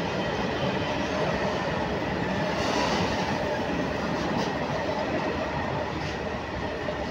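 Freight train of covered hopper wagons rolling past at close range: a steady noise of wheels on rail, with a few brief sharper clacks as the wheels pass over the rail joints.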